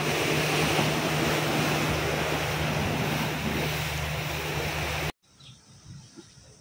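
Sea surf washing against rocks with wind on the microphone, a loud, steady rush. It cuts off abruptly about five seconds in, leaving a much quieter background.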